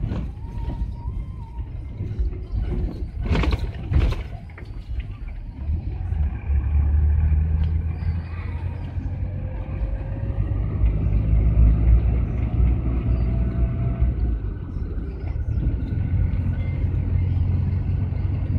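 GAZelle van's engine and road noise heard from inside the cab while driving, a steady low drone that grows stronger about six seconds in. There are two sharp knocks about three and four seconds in, and a faint rising whine as the van picks up speed.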